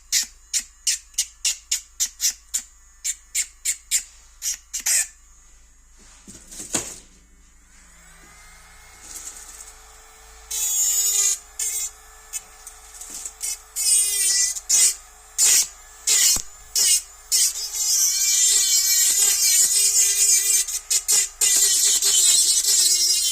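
A quick run of sharp clicks, about three a second, then an electric nail drill's motor starts up with a steady whine. Its bit grinds gel polish off an artificial nail tip, in short passes at first and then continuously.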